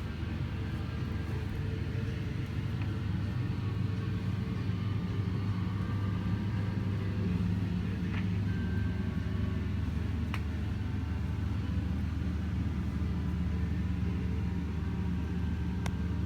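Steady low rumble with a constant hum, broken by a few faint clicks.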